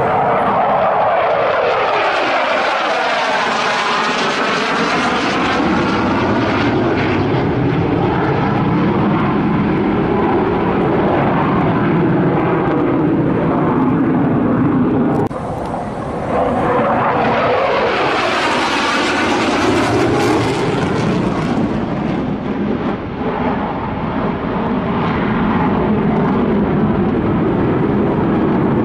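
Sukhoi Su-27/Su-30 fighter jet's twin turbofan engines running loud through a low display pass, the jet noise swelling and sweeping up and down in pitch as it goes by overhead. There is a brief dip and break about halfway through, then a second sweep.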